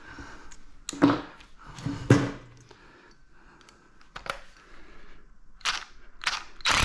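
A tool knocking on a brass faucet being broken down for scrap: about six sharp bangs, irregularly spaced.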